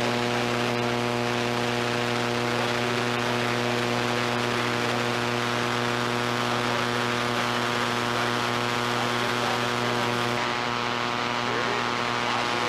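Steady electrical mains hum, a buzz of many evenly stacked tones, over constant hiss on an old videotape's sound track; faint voices and gym noise sit beneath it.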